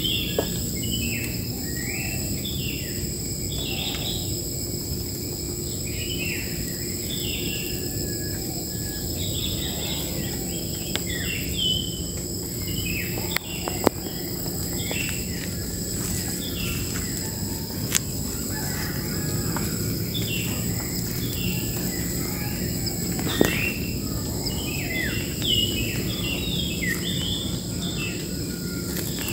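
Wild birds chirping with many short, quick falling notes over a steady high-pitched insect drone. Three sharp clicks come about a third, halfway and four-fifths of the way through.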